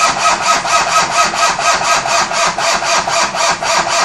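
Starter motor cranking the freshly rebuilt Toyota 5L four-cylinder diesel, an even rhythmic churning of about five beats a second, without the engine catching.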